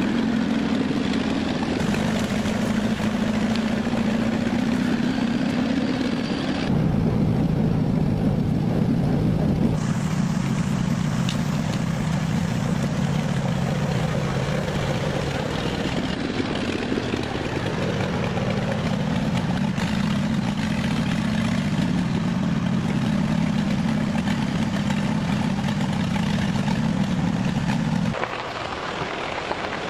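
David Brown 25 tractor's petrol engine running steadily, its speed dropping about seven seconds in and rising again near twenty seconds; the engine note ends shortly before the end.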